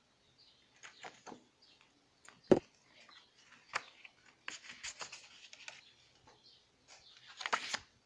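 Sheets of patterned scrapbooking paper and cardstock being handled on a pile: short rustles and slides of paper, with a sharp tap about two and a half seconds in.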